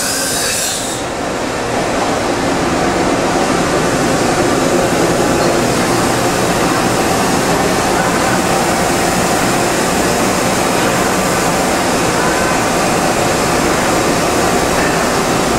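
Okuma MC-50H CNC horizontal machining center running: a steady, loud rush of its motors, pumps and fans with faint humming tones. A brief high hiss is heard at the very start.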